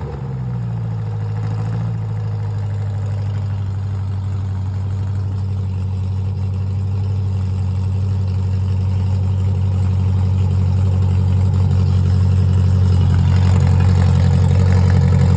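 Freshly rebuilt Triumph Spitfire 1296 four-cylinder engine idling steadily on a run stand, settling down from a rev right at the start.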